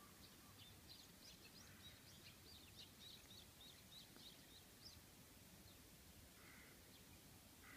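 Faint birdsong: a quick string of short, high chirps for the first five seconds or so, over a low, steady outdoor background hiss.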